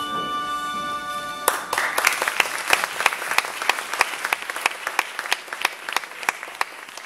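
A held musical chord ends about one and a half seconds in, and an audience breaks into applause, which dies down near the end.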